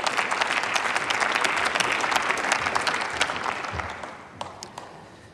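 Audience of parliamentarians applauding, the clapping thinning out and dying away over the last couple of seconds, with a few last separate claps.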